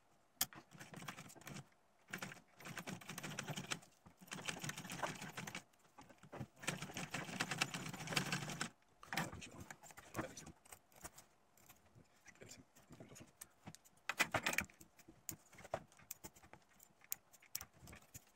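Vintage sewing machine stitching leather in three short runs of rapid clicking in the first half. Scattered clicks follow, with one brief run of stitching later on.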